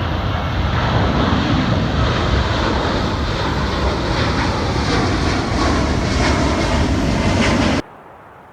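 Airplane engine noise, a steady rumbling roar that cuts off abruptly near the end.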